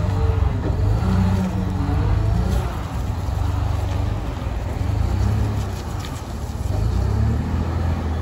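Caterpillar 972K wheel loader's six-cylinder Cat C9.3 diesel engine running steadily as the loader drives forward, its note shifting up and down a little.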